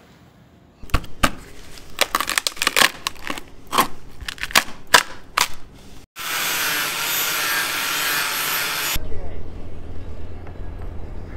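Metal chisel picking and scraping at damaged fibreglass laminate and core of a boat hull: a quick, irregular run of sharp scrapes and clicks for about five seconds. After a cut, a steady hiss lasts about three seconds, then gives way to a low hum.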